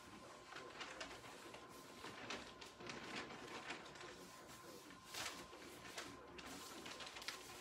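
Xuan paper rustling and sliding over a felt mat as the sheet is shifted and smoothed by hand, in a string of short, soft rustles.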